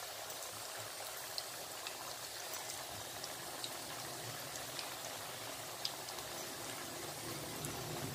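Sticks of kokoro, a corn-flour dough snack, deep-frying in hot oil in a pan: a steady sizzle with scattered sharp pops.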